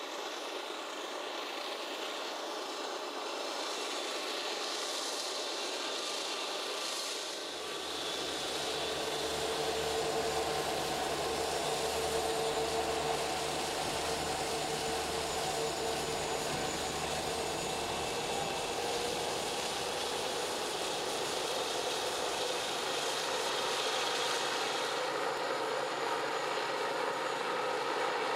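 Diesel locomotive engines running: a steady engine noise with a whine, and a deeper rumble that comes in about seven seconds in.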